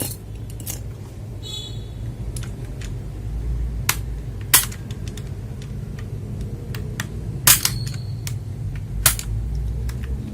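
A handful of sharp, separate clicks from handling an HP GK400Y mechanical keyboard as its switch stems and keycaps are worked, over a steady low hum.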